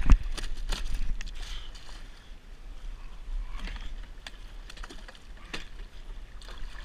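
One sharp, loud thump right at the start, then scattered small clicks and knocks of fishing gear being handled on the jetski, over a steady low rumble of wind on the microphone.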